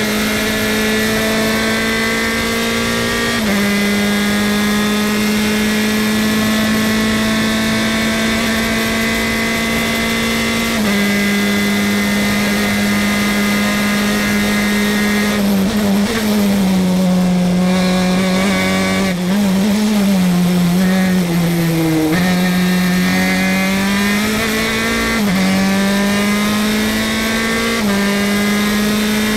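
FE2 open-wheel race car's engine at full throttle, heard onboard, pitch dropping briefly at upshifts about 3 and 11 seconds in. About 16 seconds in the engine note wavers and falls as the car brakes and downshifts for a corner, then climbs again with two more upshifts near the end, over steady wind and tyre noise.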